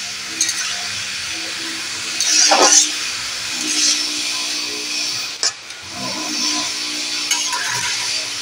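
Chopped water spinach simmering in a little water in an aluminium kadai, with a steady hiss of steam and boiling, while a metal spatula stirs and scrapes the pan; the loudest scrape comes about two and a half seconds in. A faint steady low hum runs underneath.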